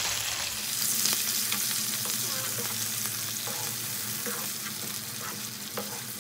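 Marinated chicken sizzling in hot oil in a nonstick frying pan, cooking down until the oil separates. A slotted spatula stirs it, with a few light scrapes and taps against the pan.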